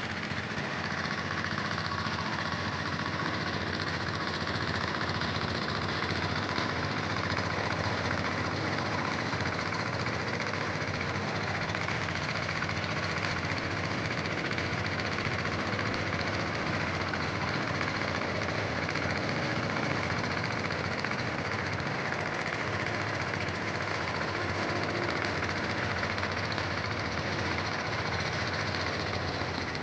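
Sveam 25 HP diesel engine running steadily, driving a 6-inch Niagara water pump.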